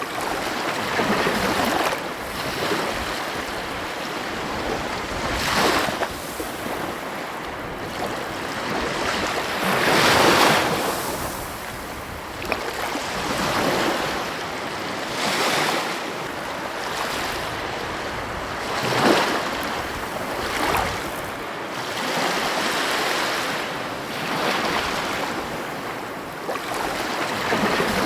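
Ocean waves breaking on a beach: a steady wash of surf that swells each time a wave breaks, every four to five seconds, loudest about ten seconds in and again near nineteen seconds.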